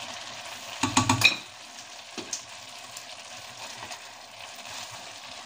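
A cooking utensil stirring shredded cabbage and rice noodles in a stainless steel pot, clattering against the metal several times in quick succession about a second in, over the steady sizzle of the cooking.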